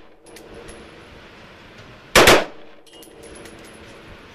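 AR-15 carbine with a Slide Fire bump-fire stock firing one short, very loud burst about two seconds in. Faint light metallic clinks and a thin high ringing follow it.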